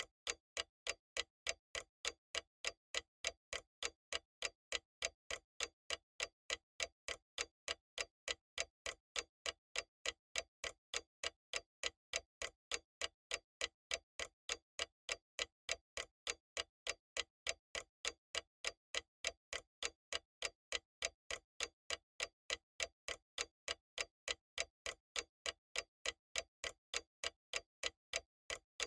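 Steady, even clock-like ticking, a little over two ticks a second, with every tick alike: an added tick-tock sound effect rather than anything the cats make.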